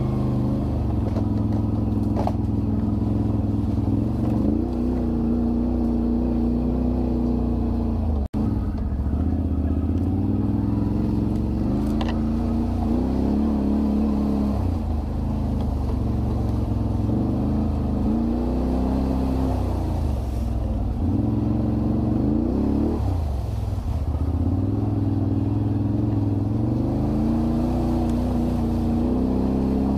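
ATV engine running, its pitch rising and falling in repeated revs over a steady low drone. The sound cuts out for an instant about eight seconds in.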